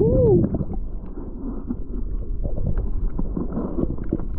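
Muffled underwater sound of a swimmer moving over a sandy seabed: a steady rush of water with small knocks and bumps. A short hum that rises then falls comes right at the start.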